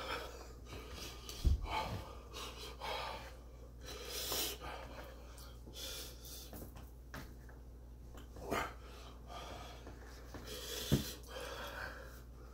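A man breathing hard and wheezing through his mouth, a pained reaction to the burn of an extremely hot chili chocolate bar. Two dull thumps come about a second and a half in and near the end.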